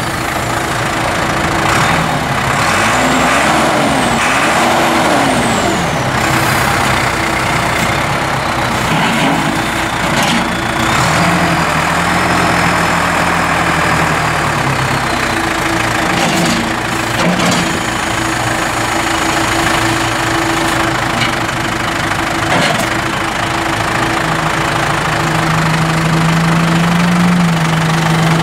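The John Deere 5525's turbocharged four-cylinder diesel engine running. Its revs rise and fall a few times in the first six seconds, and it is held higher for a few seconds in the middle and near the end while the front loader raises and lowers the bucket. A few clunks come through over the engine.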